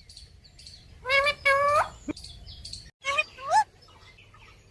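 Pet parrot calling: two loud drawn-out squawking calls about a second in, then two shorter calls that rise in pitch about three seconds in, with faint high chirps between.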